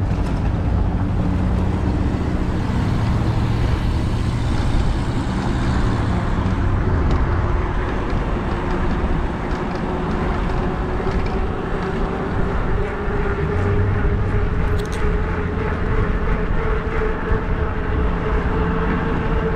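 Electric bike on the move: wind rushing over the microphone and tyre and road noise, steady throughout, with a thin motor whine that climbs slowly in pitch through the second half.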